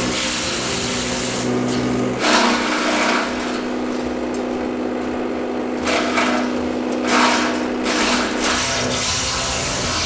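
Homemade wood chipper running with a steady hum, with three louder bursts of noise about two, six and seven seconds in as wood is fed through and chipped.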